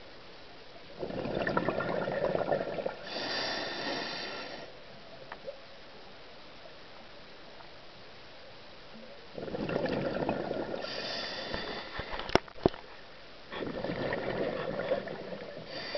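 Scuba diver breathing through a regulator underwater: three breath cycles, each a rush of exhaled bubbles and a hissing draw of air through the regulator. A couple of sharp clicks come about twelve seconds in.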